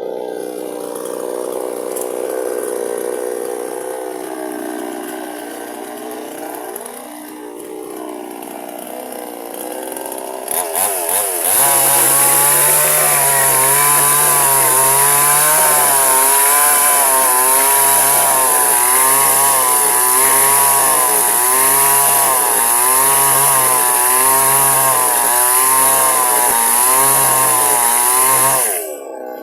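Gasoline chainsaw running at lower revs with the engine speed wandering, then opened up to full throttle about eleven seconds in and cutting into tree wood, the revs rising and falling about once a second under load, before dropping off suddenly near the end.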